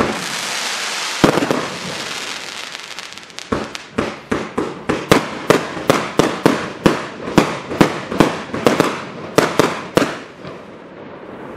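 A 168-shot compound firework cake firing. It opens with a dense rushing noise and a single bang about a second in, then from about three and a half seconds in a rapid run of sharp shots, about three a second, that stops near the end.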